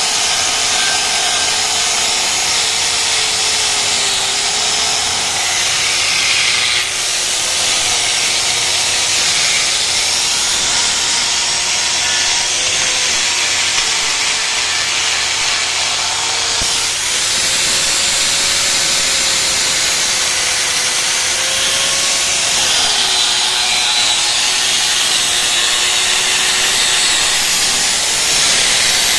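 Electric angle grinder with an abrasive disc running continuously against a steel motorcycle exhaust muffler, its motor whine wavering in pitch under a loud grinding hiss, with two brief dips in level.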